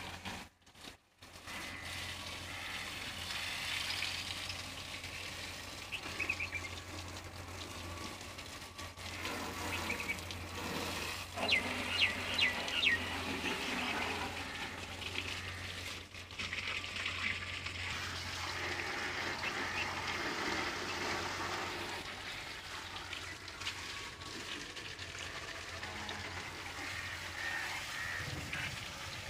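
Water from a garden hose spraying and splashing onto a tractor's engine and wheels, over a steady low hum. A cluster of short, high, sharp sounds, the loudest in the stretch, comes about twelve seconds in.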